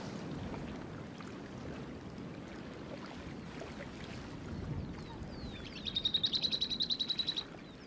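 A small songbird sings about five seconds in: a few quick downward-slurred whistles, then a fast, even high trill lasting about a second and a half. A steady rushing background runs beneath it.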